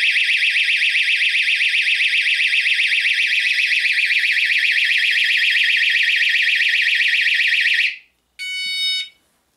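Built-in alarm siren of a HomeSafe motion-activated auto dialer, set off by movement in front of its sensor: a loud, high-pitched, rapidly warbling tone that cuts off abruptly about eight seconds in, when it is disarmed with the passcode. A single short beep from the unit follows about half a second later.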